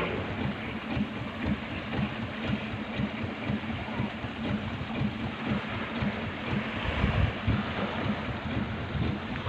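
Steady rushing noise of a boat under way on the water, with an uneven low rumble underneath.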